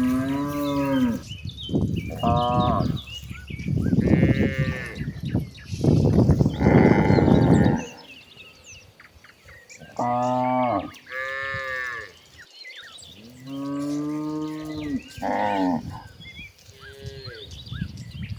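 Cattle mooing again and again: about eight drawn-out calls of a second or two each, with short gaps between. One call near the middle is rougher and noisier than the rest.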